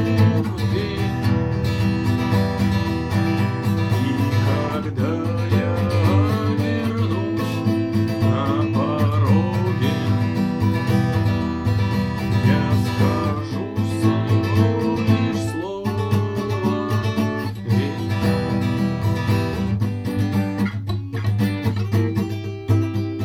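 Guitar music: chords played over a steady bass line, with sliding melodic notes on top.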